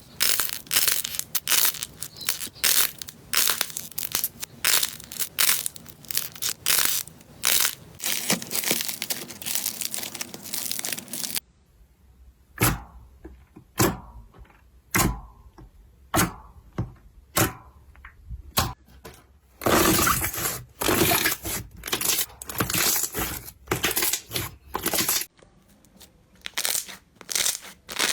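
Slime being squeezed and pressed by hand, giving sharp crackling and popping clicks. The clicks are dense at first, thin to single separate pops about a second apart in the middle stretch, then turn dense again.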